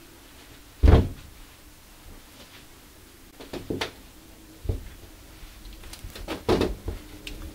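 A bundle of hot steamed dango dough in a cloth set down on a stainless steel counter with a heavy thump about a second in, followed by several lighter knocks and clatters against the steel as the cloth is opened and pulled.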